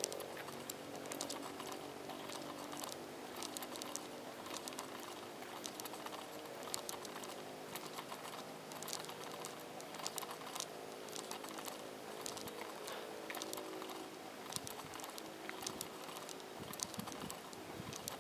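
A rapid, irregular run of light clicks and taps over a faint background.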